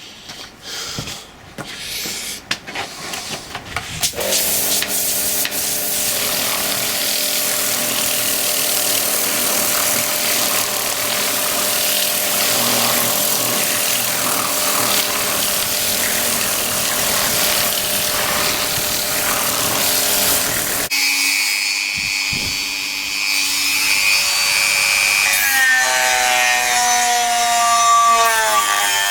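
Dremel rotary tool running steadily against the metal lathe faceplate, taking the sharp edges off, with a steady motor whine over a grinding hiss. About 21 s in, the sound changes abruptly, and near the end the motor's pitch slides as its speed changes.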